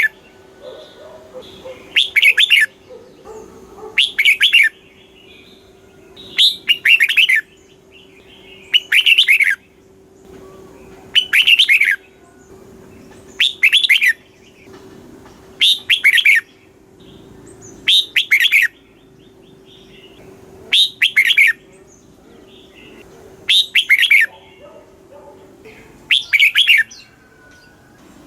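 Red-whiskered bulbul singing: a short, bright phrase repeated about every two seconds, a dozen or so times. A faint steady hum sits beneath it and stops near the end.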